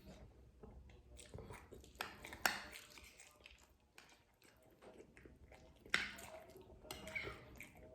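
Close-up wet mouth sounds of someone eating soft durian pengat: chewing with lip smacks and sharp clicks, loudest at about two, two and a half and six seconds in.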